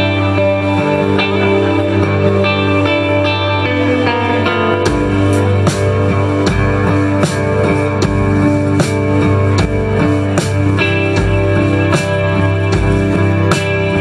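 Live band playing an instrumental piece on electric guitars and keyboard. The drums come in about five seconds in, with kick drum and cymbals keeping a steady beat.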